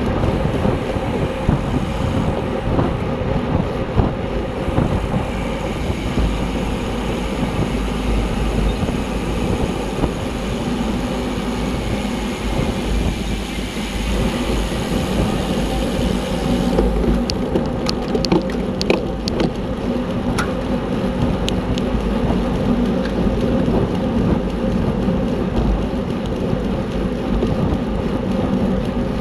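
Road bike ridden at race speed: a steady rush of wind and road noise with a hum from the tyres and drivetrain, and scattered sharp clicks from a little past halfway.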